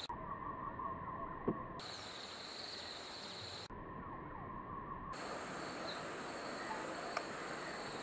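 Insects droning steadily at a high, even pitch, with a lower steady tone that comes and goes abruptly a few times where the recording is cut.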